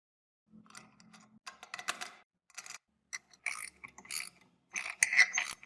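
Metal parts of a mechanical weight scale clicking, rattling and scraping in a run of short, irregular bursts as the mechanism is worked, loudest near the end.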